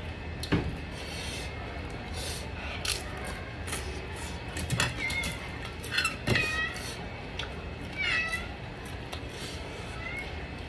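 A cat meowing repeatedly in short, high calls, about five of them in the second half. There are a few sharp clicks among them.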